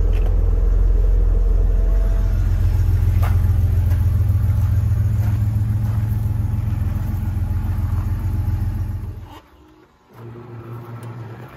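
The Porsche 911 Turbo's 3.3-litre turbocharged flat-six idling with a steady low rumble. About nine seconds in, it stops abruptly. A second later a quieter steady electric hum starts, the convertible soft-top motor beginning to run.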